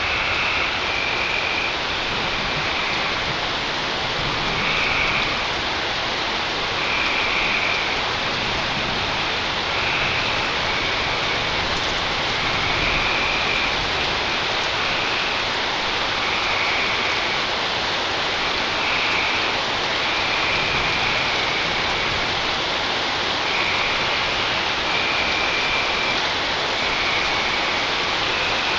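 Steady rain falling, with short high-pitched bursts recurring every second or two.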